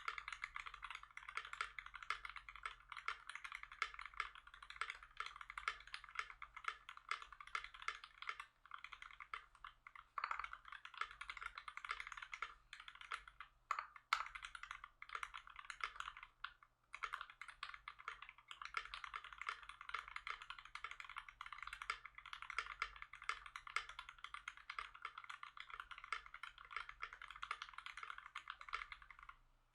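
Continuous fast typing on a custom KBD67 MKII mechanical keyboard with a black polycarbonate case, brass plate, GMK keycaps and lubed Tangerine linear switches. The keystrokes are quick and even, with a brief pause just past halfway.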